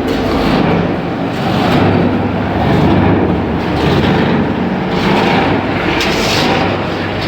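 Continuous carbonization furnace machinery running steadily: a loud mechanical drone with a low hum that swells and eases about once a second.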